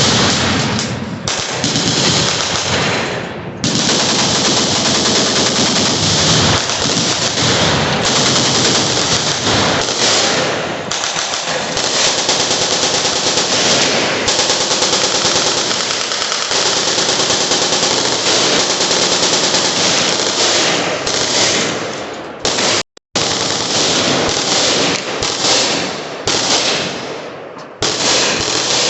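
Many machine guns firing at once in overlapping automatic bursts, merging into dense, nearly unbroken gunfire. The sound cuts out completely for a moment late on.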